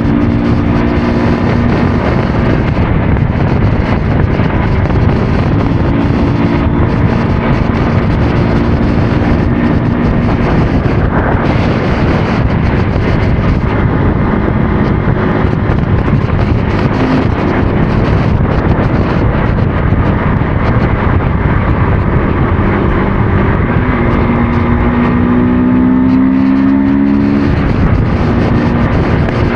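Motorcycle engine running under way, heavy wind and road noise on the microphone. The engine note changes with the throttle and climbs in pitch a few seconds before the end.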